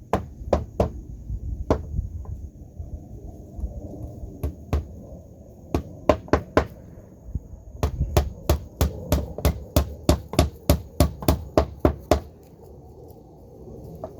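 Hammer driving nails into wooden boards: scattered blows at first, then a fast steady run of about three or four strikes a second that stops a couple of seconds before the end.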